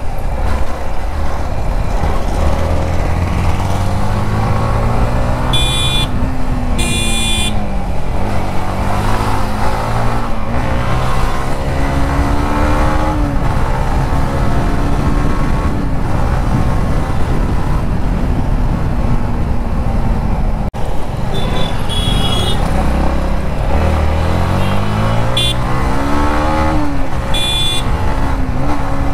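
Yamaha MT15 motorcycle engine accelerating and shifting in traffic, its pitch climbing and dropping back again and again over a steady rush of wind. Short horn toots cut in twice about six seconds in and three more times in the last third.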